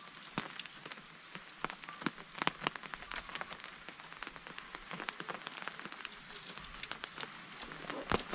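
Water pattering and dripping: a steady spatter with sharper drops and splashes scattered irregularly through it.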